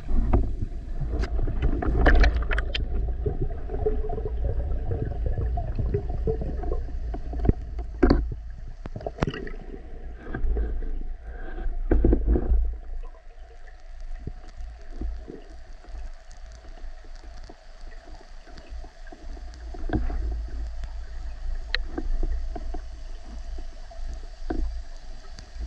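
Muffled underwater rumble and water movement picked up by a camera in its waterproof housing while a spearfisher swims with a speargun, with scattered sharp clicks and knocks. Louder and rougher for about the first half, then quieter with only occasional ticks.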